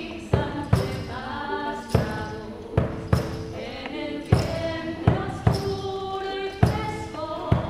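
Live song: women's voices singing held notes over hand drums struck in a steady, repeating pattern, roughly two strokes a second.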